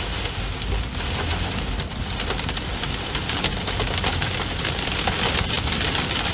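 Heavy rain hitting the windshield and roof of a car driving through a severe thunderstorm, heard from inside the cabin: a steady, dense rush of noise dotted with many sharp drop impacts.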